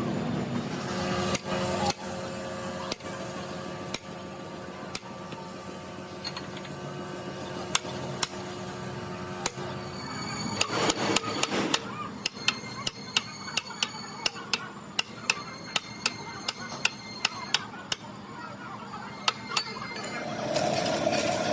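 Hammer striking metal: a few scattered blows at first, then a quick run of light taps at about three or four a second in the second half.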